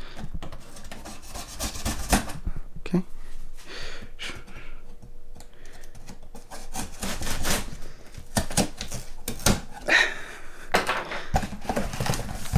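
Folding knife blade scraping and slicing along packing tape on a cardboard box, in irregular short strokes, with cardboard rubbing and rustling as the taped flap is worked open.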